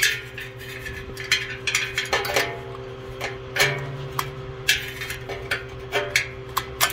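Irregular metallic clicks and clinks of a wrench and loosened bolts against the steel governor and throttle linkage of a V-twin small engine as the parts are unbolted, over a steady low hum.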